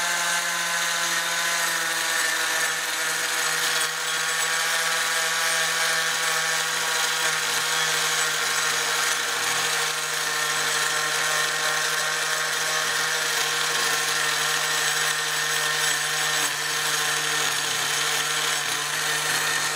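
Electric angle grinder with a wood-carving head running at a steady whine while lightly grinding walnut, smoothing out chainsaw-blade marks.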